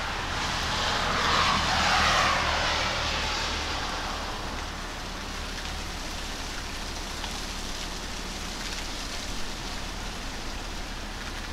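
A vehicle passing on a wet road, its tyre hiss swelling and then falling away over the first few seconds. Under it and afterwards, freezing rain falls with a steady hiss.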